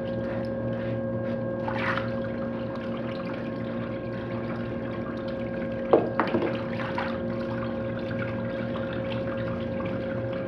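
Water running and trickling over a fine gold recovery sluice table, with the steady hum of its 12-volt, 500-gallon-per-hour recirculating pump. A couple of brief clicks come about two and six seconds in.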